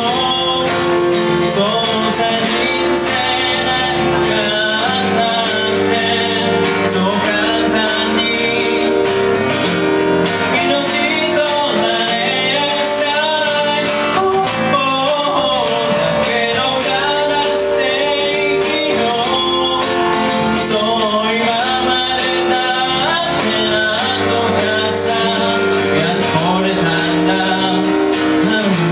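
Live song: a man singing with a strummed acoustic guitar, accompanied on an electric keyboard.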